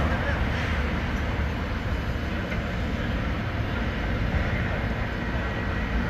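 Steady low engine rumble mixed with street traffic noise, with no single sound standing out.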